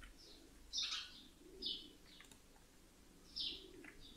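Birds chirping faintly in the background: a few short, high chirps falling in pitch, at uneven intervals.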